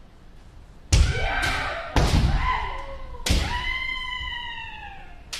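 Kendo practice: sharp, loud cracks and thuds of bamboo shinai striking armour and feet stamping on the wooden dojo floor, three times about a second apart and once more near the end. Each strike comes with a long shouted kiai that falls in pitch.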